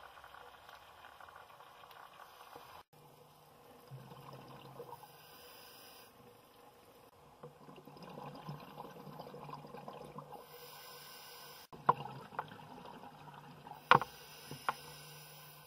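Underwater ambience recorded with the camera below the surface: a steady crackling water noise with a low hum. It changes abruptly twice, and near the end come a few sharp clicks or knocks.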